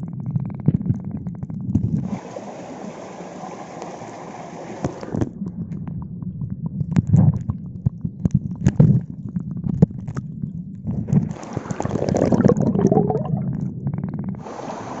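Muffled underwater gurgling and sloshing of stream water, heard through a phone's microphone sealed in a waterproof pouch, with scattered clicks and knocks and two stretches of louder hiss.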